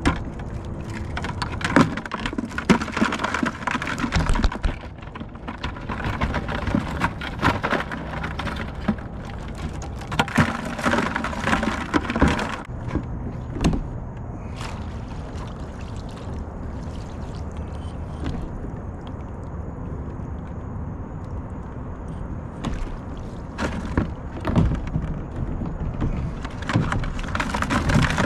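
Water splashing and clattering knocks over a low steady hum and rumble, in two busy stretches: one through the first half and another near the end, quieter in between.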